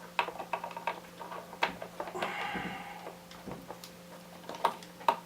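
Scattered small clicks and taps of cables and connectors being handled and plugged back in inside an opened iMac.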